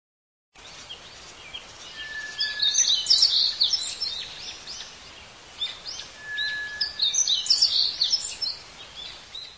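Birdsong ambience sound effect: birds chirping and twittering in two bursts over a steady outdoor hiss, each burst led by a short steady whistled note. It starts about half a second in.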